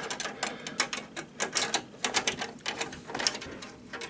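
Irregular small clicks and rattles of hands handling small computer parts and hardware inside an open desktop PC case.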